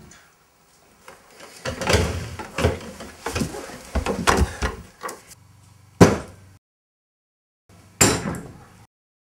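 Irregular banging and clattering against a door, then two hard door slams about six and eight seconds in, each cut off abruptly.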